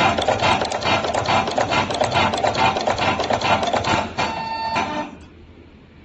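Semi-automatic membrane switch pin crimping machine (WL-MS02) running through a crimp cycle: a rapid run of mechanical clacks, about four or five a second, as pins are crimped onto the flexible circuit tail. About 4 s in it changes to a steady whine for about a second, then stops suddenly.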